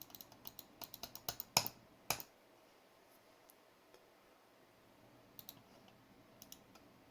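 Clicking at a computer: a quick run of sharp clicks over the first two seconds, then a few more scattered clicks later on.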